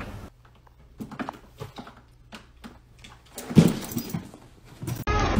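A cat jumping about on a carpeted cat tree: scattered light taps and knocks, then a loud thump about three and a half seconds in as it lands or pushes off.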